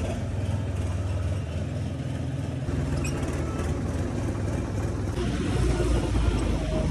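John Deere tractor's diesel engine running steadily as the tractor is driven. The sound changes abruptly about a third of the way in and again past the middle.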